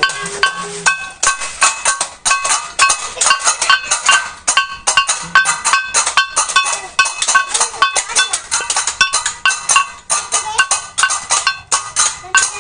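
Balinese gamelan music for a barong procession: rapid metallic percussion with clashing cymbals and ringing bronze tones, several strikes a second.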